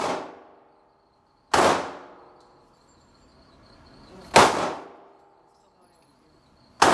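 Three single gunshots, evenly spaced about two and a half to three seconds apart, each with a short echoing tail.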